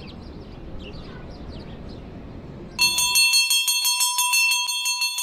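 A low, even ambient rumble with faint high chirps, then almost three seconds in a metal bell starts ringing loudly, struck rapidly about five or six times a second over a steady ringing tone.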